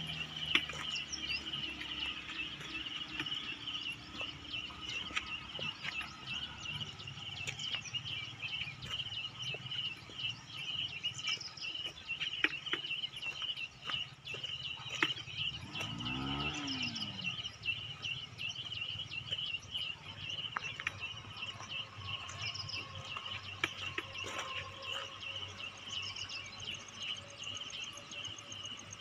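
Steady, pulsing shrill drone of insects, with a cow mooing once about halfway through, its pitch rising then falling. A motorcycle engine fades out in the first second.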